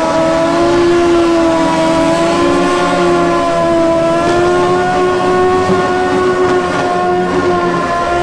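Superbike engine held at high revs during a rear-tyre burnout, giving a steady high-pitched note that creeps up slightly in pitch.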